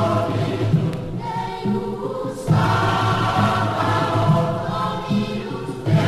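Background music: a choir holding sustained chords over a low note that repeats about once a second.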